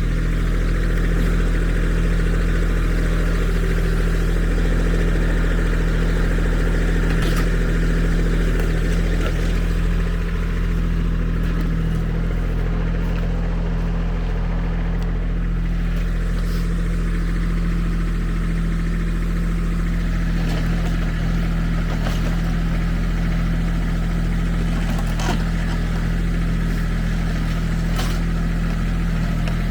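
Kubota SSV75 skid steer's diesel engine running steadily, with a few short knocks along the way.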